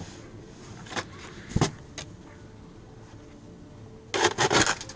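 Ice being knocked loose and breaking off a snow-laden roof: a few sharp knocks and cracks, then a quick burst of cracking, clattering impacts about four seconds in.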